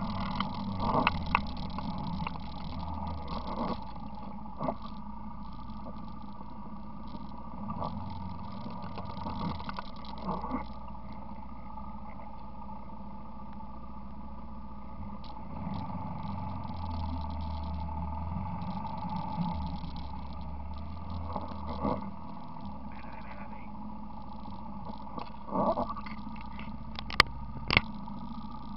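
ATV engine running steadily as the quad travels a rough dirt trail, its low rumble swelling and easing, with occasional sharp knocks and rattles, two of them close together near the end.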